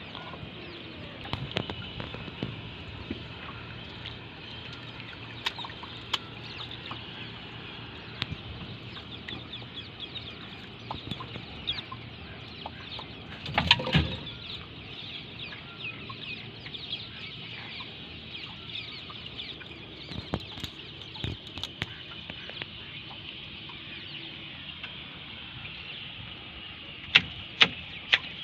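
Many birds chattering and calling steadily, with scattered sharp knocks and rustles as a fishing net is handled in a small boat. There is a louder clatter about halfway through and a quick run of sharp knocks near the end.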